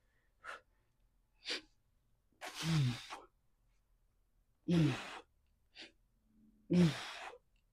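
A man breathing hard through a set of dumbbell lateral raises: short sharp breaths, and three voiced, effortful exhales about two seconds apart, each falling in pitch.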